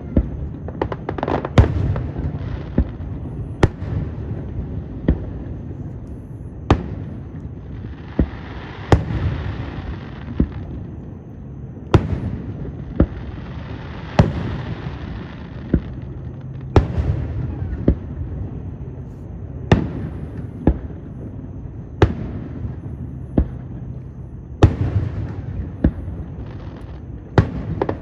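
Aerial fireworks display: a string of sharp bangs going off every one to two seconds, with two longer stretches of crackling hiss around the middle.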